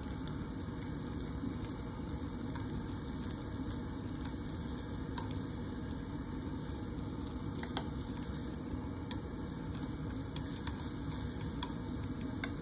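Thin layer of beaten egg sizzling steadily in an oiled frying pan as it is rolled into a tamagoyaki with chopsticks. A few sharp clicks of the chopsticks against the pan are heard over the sizzle.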